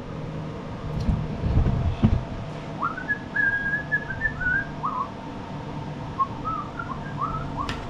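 A person whistling a short tune: a string of notes, several sliding up into each other, starting about three seconds in. A few dull knocks from handling parts come just before it.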